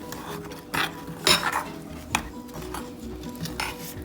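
A utensil stirring a thin brown-sugar barbecue sauce in a mixing bowl, clinking against the bowl a few sharp times while the sugar dissolves.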